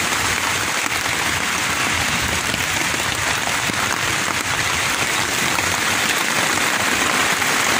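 Rain falling steadily on the tent's rainfly, heard from inside the tent as a dense, even patter.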